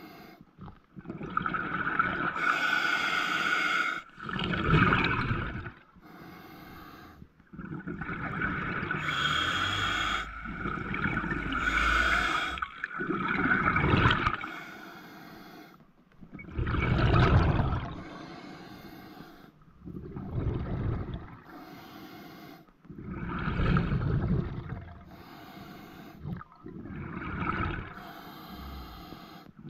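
Scuba diver breathing through a regulator underwater: a long hissing inhale with a faint whistle in it, then a loud burst of exhaled bubbles, repeating every few seconds.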